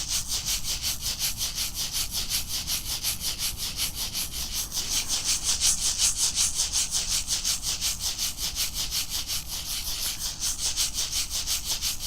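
Shamanic rattle shaken in a steady, even rhythm of about five shakes a second, a dry hissing rattle.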